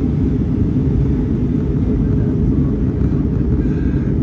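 Steady low rumble of an Airbus A319-100 airliner: engine and airflow noise, even throughout with no distinct events.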